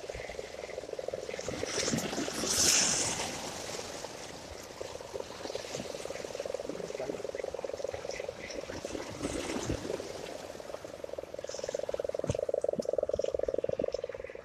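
Spinning reel being cranked to retrieve the line, a continuous rattling buzz of fast gear clicks that grows louder near the end. A wave splashes about two and a half seconds in.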